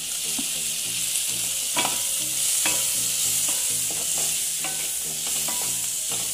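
Diced onion and green capsicum sizzling in butter in a nonstick pan, with a steady frying hiss. A wooden spatula stirring them gives repeated short scrapes and taps against the pan.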